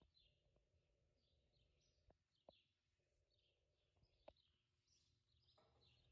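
Near silence: faint room tone with quiet, repeated bird chirping and a few soft clicks.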